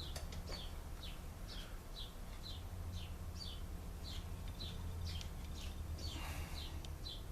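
A bird chirping over and over, with short falling chirps about two a second, over a low steady hum.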